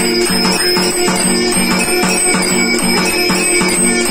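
Electric temple nagara machine running: mechanical strikers beat the large drum in a rapid, even rhythm while its brass bell is rung continuously.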